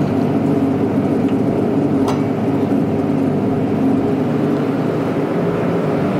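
Soft-serve ice cream machine running with a steady low hum while soft serve is drawn from its middle twist nozzle into a cone; a faint click about two seconds in.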